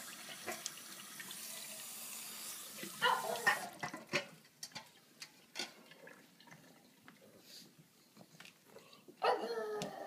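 Kitchen tap running into a stainless steel sink for the first two to three seconds as a dog's water bowl is filled. A pug then makes short vocal sounds about three seconds in and again near the end, with scattered clicks and taps in between.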